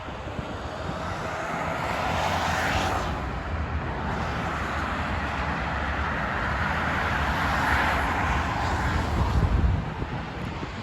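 Vehicle noise during a ride: a steady low rumble with two passing swells of noise, one about two seconds in and a longer, louder one from about seven to nine seconds in.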